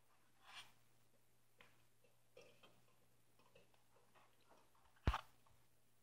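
Faint rustles and light taps of brown eggs being lifted from a cardboard egg carton, with one sharp knock about five seconds in as an egg touches the stainless steel pot.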